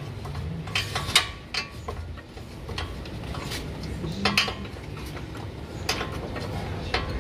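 Hand wrench working the ball-joint nut on a car's front lower control arm: irregular metal clicks and clinks in small clusters, over a low steady hum.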